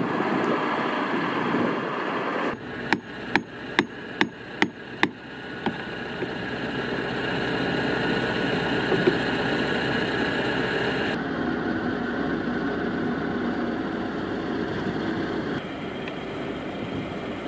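A hammer striking six times in quick succession, about two and a half blows a second, about three seconds in, over the steady running of a truck engine.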